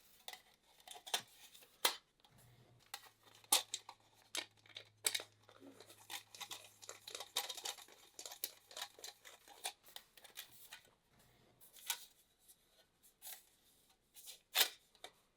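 Hand assembly of small metal parts: irregular clicks, taps and crinkles as Chicago screws are fitted and an aluminium flashing lampshade is handled against a lamp-socket mounting bracket.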